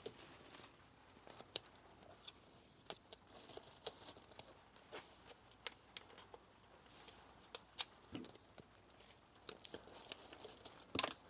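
Scattered light clicks and clinks of hand tools and small metal engine parts being handled, with one sharper click near the end.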